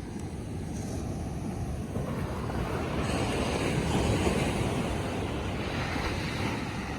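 Surf breaking and washing up the beach, the rush of water swelling a couple of seconds in and easing off toward the end, with wind buffeting the microphone.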